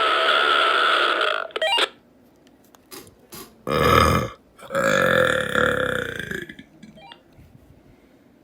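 Burps over walkie-talkies: a long burp comes through a radio speaker with hiss and cuts off with a squelch click about a second and a half in. Two loud burps follow, a short one about 4 seconds in and a longer one right after.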